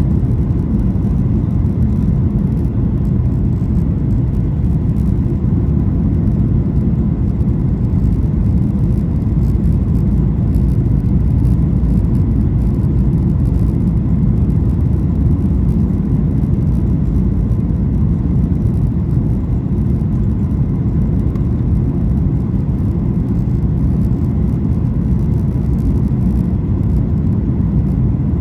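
Steady low rumble inside the economy cabin of a Boeing 737-800 in flight on approach: airflow over the fuselage and the two CFM56-7B engines, with no changes.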